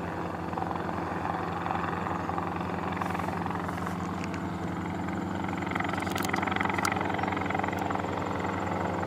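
An unseen engine running steadily, a constant low droning hum with a fast even pulse, with a few light handling clicks about six seconds in.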